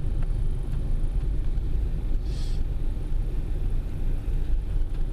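Steady low rumble of a car moving slowly, heard from inside its cabin, with a brief hiss a little past two seconds in.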